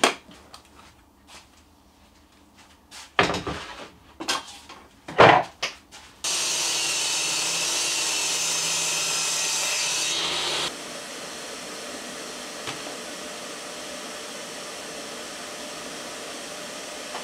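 A few knocks, then an electric circular saw cutting maritime pine plywood, starting abruptly about six seconds in. About four seconds later the sound drops to a lower steady level.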